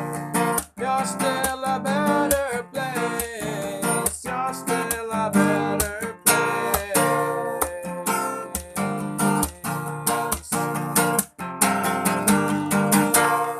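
Outro of a band's pop song: strummed acoustic guitar chords in a steady rhythm, with the song coming to its close.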